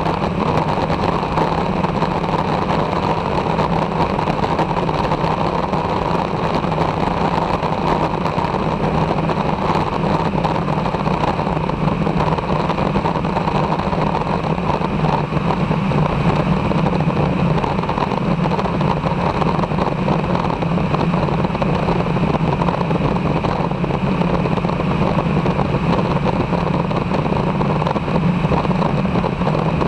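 Aeroprakt Foxbat light aircraft's engine and propeller running steadily in level flight, a constant drone over a rushing hiss.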